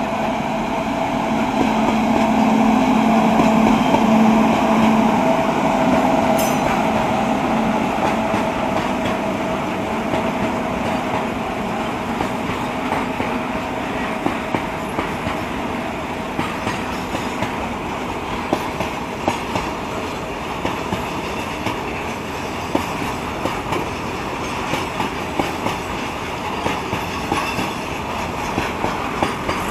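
A long goods train of covered freight wagons rolls past. In the first few seconds the locomotive passes, with a steady drone. After that, the wagons' wheels give a rumble with repeated clickety-clack over the rail joints.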